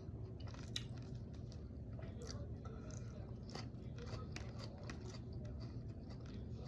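A person chewing a crisp salad close to the microphone, with scattered small crunches and mouth clicks.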